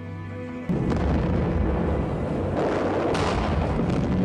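Artillery fire and explosions from a war-film battle soundtrack, cutting in suddenly under a second in as a dense, continuous rumble, with a sharper blast about three seconds in.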